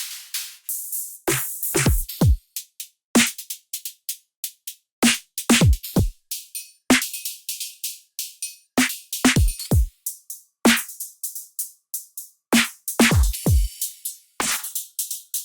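Electronic drum-machine beat from an Ableton drum rack: kick drums that drop steeply in pitch and short hi-hat hits, in an uneven, broken rhythm with brief gaps.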